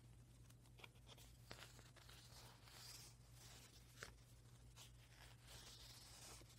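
Faint rustling and brushing of microfiber fabric swatches and paper pages being handled in a sample book, with a few soft ticks, over a low steady hum.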